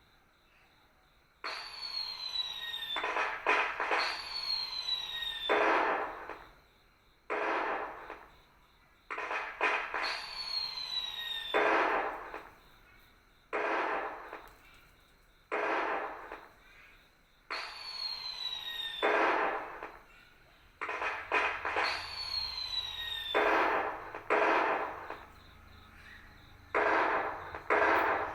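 Firework sound effects played through the LED fireworks tree's sound module. A falling whistle is followed by a crackling bang-burst, and the pair repeats about every two seconds like a continuous fireworks show.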